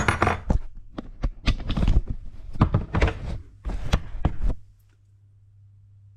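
A run of knocks, clicks and short scrapes from hand work on pipework, stopping about four and a half seconds in, leaving a low steady hum.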